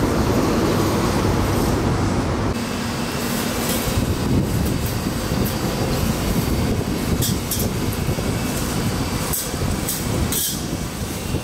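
Steady low rumble of passing city vehicles, with a few brief high hissing or squealing streaks in the second half.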